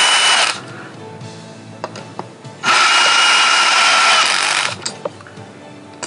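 Power drill with a socket extension snugging the bolts of a Bafang BBSHD mid-drive motor's mounting bracket, run twice for about two seconds at a time with a steady whine. It is driven lightly, only to draw the motor up square against the bottom bracket, not to full torque.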